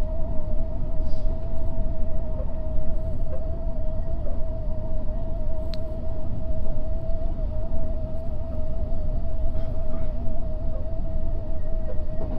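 Odakyu 8000 series electric train running along the track, heard from the cab: a steady low rumble with a constant whine held at one pitch, and a single sharp click about six seconds in.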